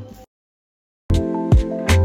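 A moment of dead silence, then background music starts abruptly about a second in, with sharp beats over sustained notes.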